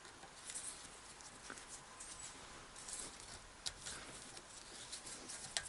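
Faint, scattered clicks and scrapes of VamPliers Pro screw-extraction linesman pliers gripping a bolt on a small diesel engine and turning it loose.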